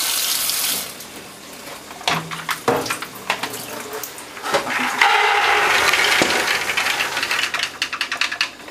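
Tap water running onto soaked marrowfat peas in an aluminium colander, stopping about a second in. Then an aluminium colander knocks against a metal pot, and from about five seconds in the wet peas are tipped from it into the aluminium pot as a dense clatter of many small clicks that thins out toward the end.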